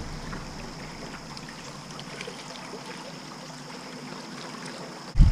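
Creek water running steadily in the background. Just before the end a sudden loud low rumble breaks in.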